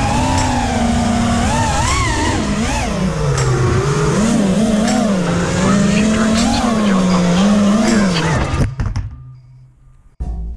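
Brushless motors (RS2205 2300KV) of a 225-size FPV racing quadcopter whining through the onboard camera, their pitch rising and falling with the throttle over rushing air. About nine seconds in the motor sound stops abruptly, and music starts near the end.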